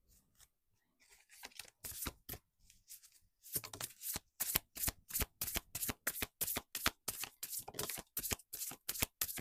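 Sacred Forest oracle deck being shuffled by hand: a few soft card sounds at first, then from about three and a half seconds in a quick, even run of crisp card slaps, about four a second.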